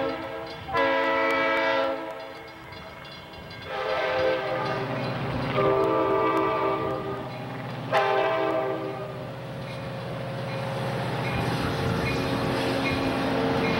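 Amtrak F59PHI diesel locomotive sounding its air horn in three blasts as it approaches, each blast a chord of several notes. After the last blast, about nine seconds in, the locomotive's diesel engine drones steadily as it draws close.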